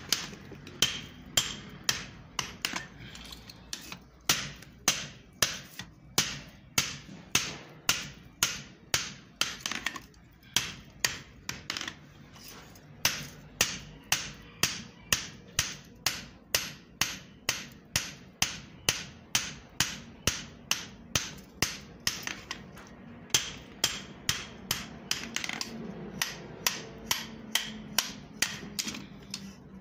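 Hand hammer striking a red-hot steel axe head on a small anvil: a steady run of sharp blows, about two to three a second, with a few brief pauses, as the hot metal is forged to shape.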